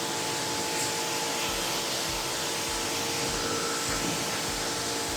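Pressure washer running, its jet spraying water onto a car's paintwork: a steady hiss of spray over a constant motor hum, with a low pulse about every half second starting a second and a half in.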